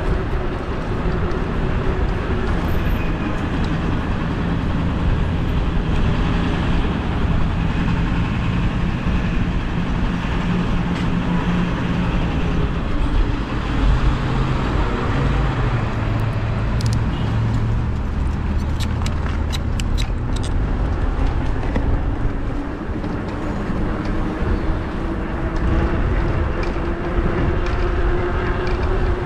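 Riding an e-bike through city street traffic: a steady rumble of wind and road noise with passing vehicles, and a faint whine that dips and then climbs back up. A few short sharp ticks come about two-thirds of the way through.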